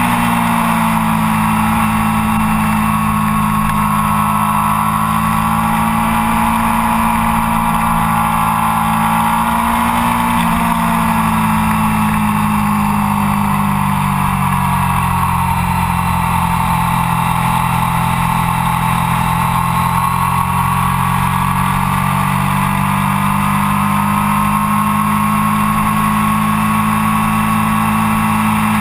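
Triumph Daytona 675's inline three-cylinder engine with an Arrow exhaust, recorded onboard at track speed. It runs high, its pitch sags from about ten seconds in, holds lower, then climbs again from about twenty seconds in as it pulls harder.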